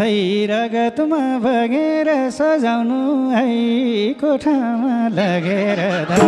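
Nepali dohori folk music: a single melody with sliding, wavering ornaments, in short phrases, with hardly any drumming; the drums come back in near the end.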